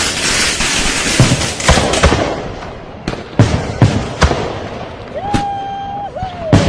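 Fireworks going off: dense crackling for the first two seconds, then a string of separate sharp bangs. About five seconds in, a held whistling tone sounds, followed by a shorter falling one.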